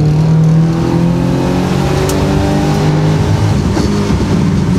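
Subaru Impreza's EJ20 flat-four engine heard from inside the cabin while driving, its note climbing gently as the car pulls along.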